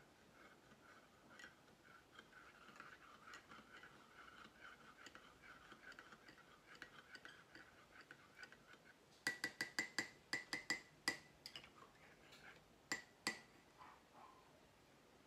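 A spoon stirring coffee in a cup makes a faint scraping rasp. About nine seconds in, the spoon taps the rim in a quick run of about ten ringing clinks, and two more clinks follow a few seconds later.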